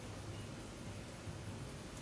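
Faint steady background hiss with a low rumble underneath; no distinct sound stands out.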